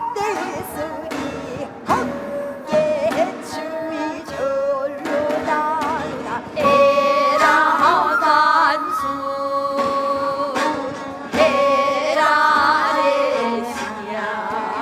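A woman singing a Namdo minyo, a southern Korean folk song, in full voice, holding long notes with a wide, shaking vibrato over instrumental accompaniment.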